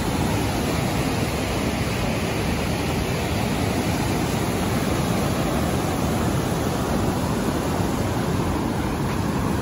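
Steady rushing noise of fast whitewater river rapids.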